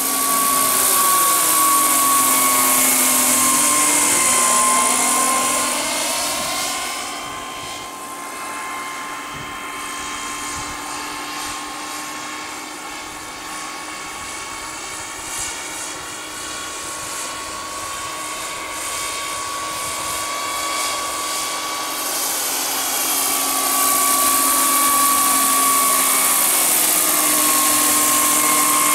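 Radio-controlled scale Sikorsky S-64 Skycrane model helicopter with a model turbine flying: a steady, high turbine whine over the rotor sound. It is loud and sweeping as the model passes close in the first few seconds, fades while it is farther off, and grows loud again near the end.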